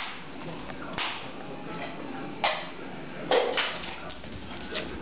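A dog's paws slapping and tapping on a tile floor as it swats at an insect: a handful of short sharp knocks, the loudest a quick pair about three and a half seconds in, over steady background noise.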